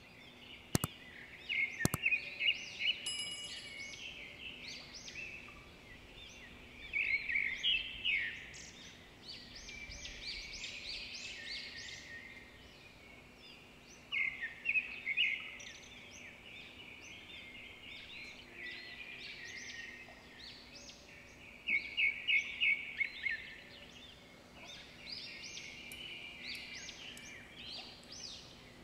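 Birds chirping: quick high chirping phrases that come in bursts every few seconds, over a faint steady hum. Two sharp clicks sound in the first two seconds.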